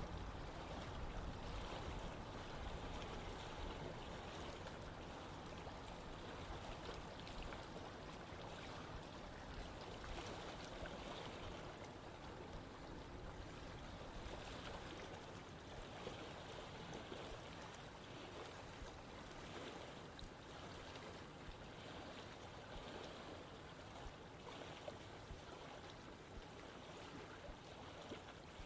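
Running water of a small stream flowing and gurgling steadily over rocks.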